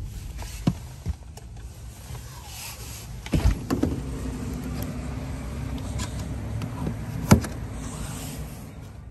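Sounds inside a car: low cabin rumble with a few sharp clicks and knocks, the loudest about seven seconds in, and a steady motor-like hum between about four and seven seconds in.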